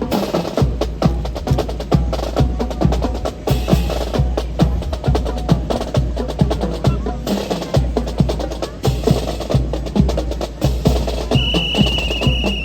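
Drill rifles (M1 Garands) slapped, spun and caught by a drill squad, making many sharp wooden and metal clacks in a quick, uneven rhythm over a steady low rumble. A brief thin high tone sounds near the end.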